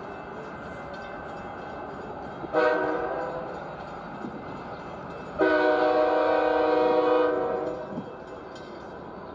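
Train horn sounding: a short blast about two and a half seconds in, then a longer blast of about two seconds, over a steady background rumble.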